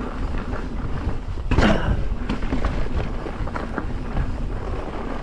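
Mountain bike descending a dirt singletrack: tyres running over dirt and the bike rattling over bumps, with wind rumbling on the microphone. About one and a half seconds in comes a louder rush that falls in pitch.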